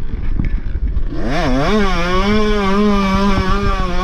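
Dirt bike engine revved up about a second in, swooping briefly, then held at a high, nearly steady pitch for about three seconds.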